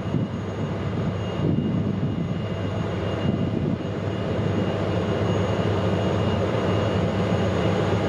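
Off-road vehicle's engine running steadily under load with a low drone, over rumbling noise from the drive up a rough track.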